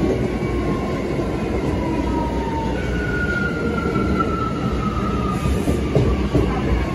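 Bombardier R179 subway car's MITRAC AC traction propulsion running, a steady rumble of wheels on rail under a thin motor whine that glides slowly down in pitch. A few knocks about six seconds in.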